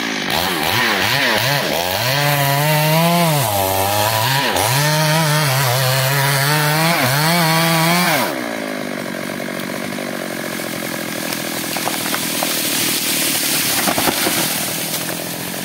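STIHL MS 382 two-stroke chainsaw running at full throttle and cutting into a tree trunk, its pitch dipping and recovering several times as the chain bogs under load. About eight seconds in, the engine note falls away, and a quieter stretch follows with scattered sharp cracks.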